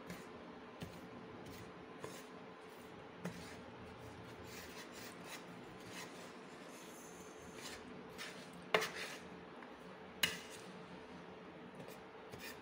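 A metal spoon scraping and clinking faintly on a ceramic plate as it stirs a flour coating mix, with two sharper clinks about nine and ten seconds in.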